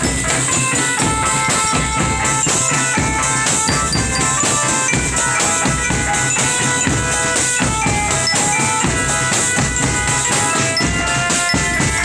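Drum band playing a tune: drums beating steadily under a melody of held notes stepping from one pitch to the next.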